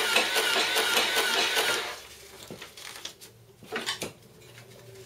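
Sharp XE-A107 cash register's built-in printer feeding paper: a steady mechanical buzz of the paper-feed motor that stops about two seconds in. A few faint clicks and rustles of the paper being handled follow.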